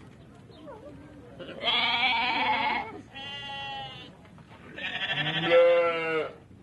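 Goat bleating three times: wavering, quavering calls, the second quieter and the third the loudest.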